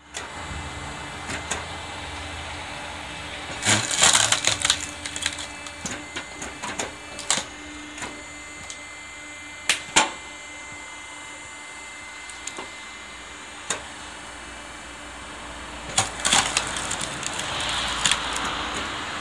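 Wood-splitting machine running with a steady hum while its blade cleaves logs, with sharp cracks and clatter of wood splitting and pieces falling, in a cluster about four seconds in, a single loud crack near the middle, and again near the end.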